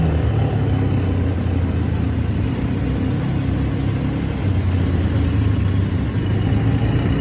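ATV engine running steadily while being ridden. Its note eases off briefly about halfway through, then picks up again.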